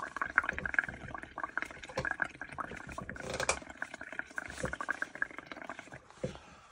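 Bubbling from air blown through a straw into a tub of paint mixed for bubble painting: a continuous run of small gurgles and pops that dies away about six seconds in.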